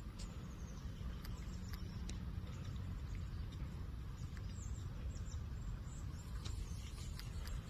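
Footsteps of someone walking on a dirt trail, short scattered steps over a steady low rumble of wind on the microphone, with a few faint high bird chirps in the middle.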